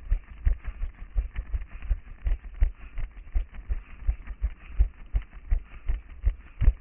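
A runner's footfalls on paved streets, picked up through a head-mounted action camera as steady low thuds about three a second at a sprinting pace.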